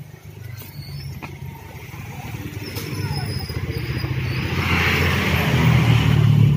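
A motor vehicle's engine rumbling and growing steadily louder as it approaches, loudest near the end.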